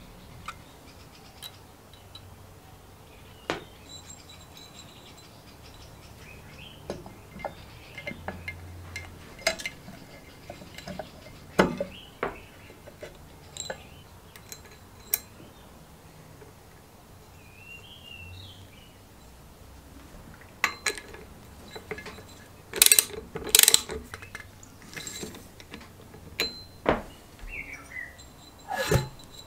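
Hand tools and metal engine parts clicking, clinking and knocking at irregular intervals while a small two-stroke engine is assembled, with the loudest cluster of knocks a few seconds before the end.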